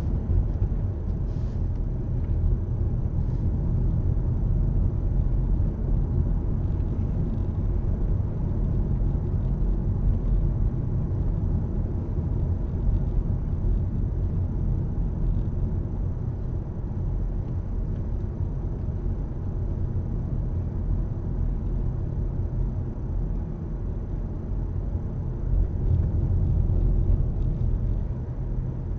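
Steady road noise inside a moving car's cabin: a low rumble of tyres and engine while driving straight ahead at an even speed.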